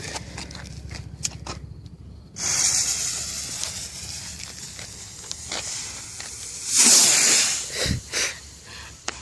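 Bottle rocket going off: the lit fuse starts hissing about two seconds in and fades slowly, then a louder whoosh comes as it shoots off about seven seconds in, followed by a sharp pop and a smaller one.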